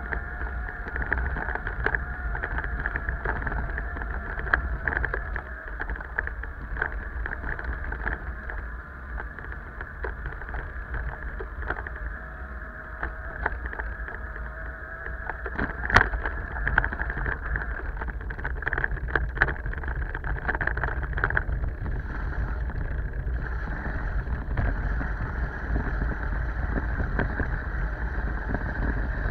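Steady rush of wind and road noise on a camera microphone during a bicycle ride on asphalt, with scattered small rattles and one sharp knock about 16 seconds in.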